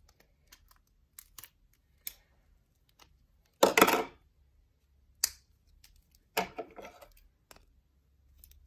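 Hands handling a clear plastic stacking container and a pair of scissors: scattered light clicks and taps, with a louder burst of plastic handling noise a little before halfway and a couple more later.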